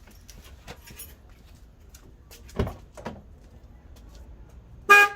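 A few light clicks and two dull thumps, then near the end one short, loud blast of an aftermarket Hella Supertone dual-tone car horn.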